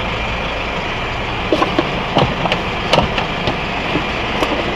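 GAZelle NN truck engine idling steadily, heard inside the cab. From about a second and a half in, a string of light clicks and plastic knocks as the owner's manual and papers are put into the glove box.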